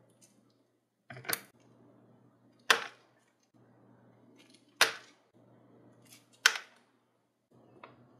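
Small brass lighter parts dropped one at a time into a shallow plastic dish of liquid, each landing with a sharp tap: four loud ones a second or two apart and a fainter one near the end.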